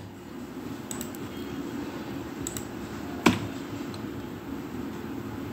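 A few sharp clicks of a computer mouse, one much louder about three seconds in, over a steady low hum.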